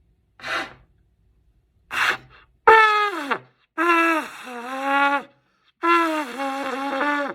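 A beginner blowing a trumpet: two short breathy puffs, then three held notes with an unsteady, wavering pitch that sags and drops away at the end of each note.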